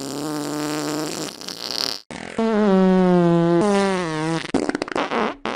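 Two farts in a row: a low one lasting about two seconds, then, after a brief break, a louder and longer one held on a steady pitch that ends in a sputtering rattle.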